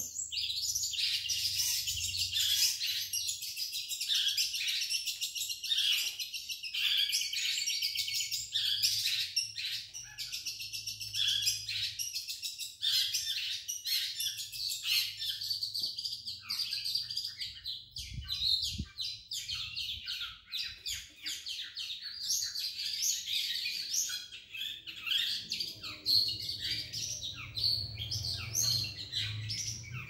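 Caged long-tailed shrikes (cendet) singing without pause, a dense stream of rapid, varied notes. The birds are set near one another so that they sing against each other, a practice used to build their nerve for song contests.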